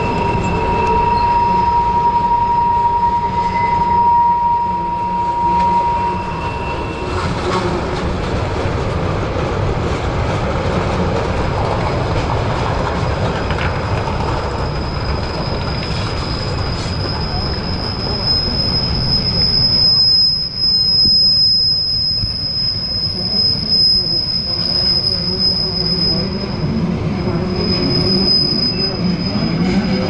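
Union Pacific freight train rolling through a curve: a steady rumble of the cars with wheel flange squeal. One steady squeal lasts the first several seconds, and a shriller one sets in about halfway through and runs on.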